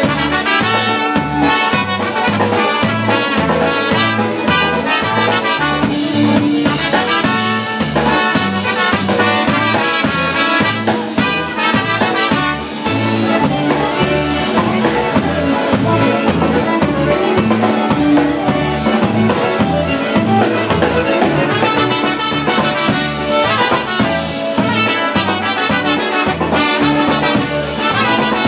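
Live Polish-American polka band playing an instrumental passage with a steady bouncing beat: two trumpets carry the melody at first, then a concertina takes the lead over piano accordion, electric bass and drum kit.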